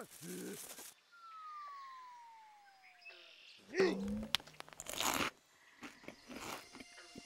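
Cartoon sound effects for a fall from a cliff: a whistle that drops steadily in pitch for about two seconds, then a crunching landing about four seconds in, with a short cry and further crunches after it.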